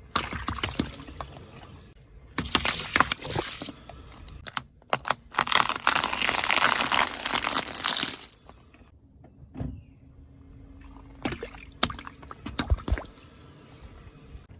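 Objects being crushed under a car tyre: spells of crunching and cracking, with one long dense crackle from about five to eight seconds in and a few sharp snaps near the end.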